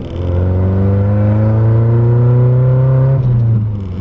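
Nissan 240SX engine accelerating hard under load, climbing in pitch through a gear, with a gear change right at the start and another about three seconds in. It pulls smoothly without sputtering or bogging, which the owner takes as the misfire being gone with the new platinum spark plugs.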